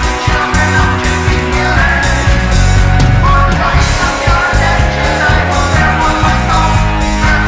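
Loud rock music from a full band of electric guitar, bass, drums and keyboards.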